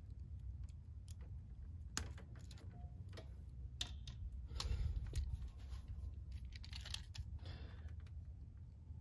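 Irregular clicks and snips of a hand wire stripper working insulated wire, mixed with short rustles and plastic clicks as wires and a plastic circuit breaker are handled.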